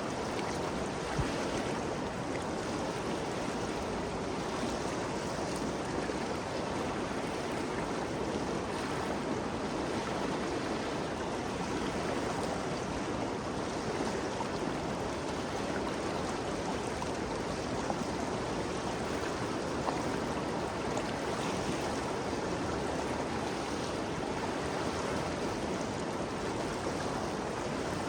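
The Ganges River flowing, a steady, even wash of moving water.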